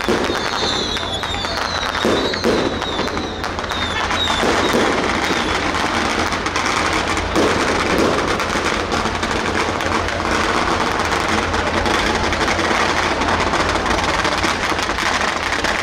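Strings of firecrackers crackling densely and without a break, with high wavering whistles over the first few seconds.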